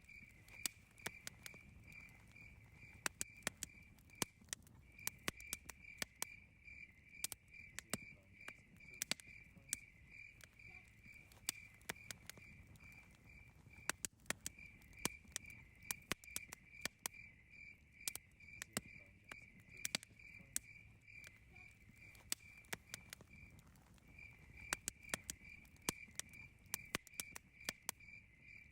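Campfire crackling, with frequent irregular sharp pops and snaps. Behind it a cricket chirps in a steady high pulsing trill that breaks off briefly three times.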